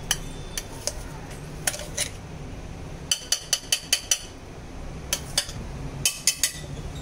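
Steel spoon clinking against a stainless-steel mixer-grinder jar and bowl as ground cashew powder is scraped out: a series of sharp metallic clinks, with a quick run of about six near the middle and a few more near the end.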